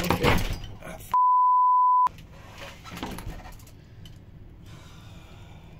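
A censor bleep: a steady, loud 1 kHz tone lasting about a second, covering a swear word. It comes just after a short burst of clattering noise.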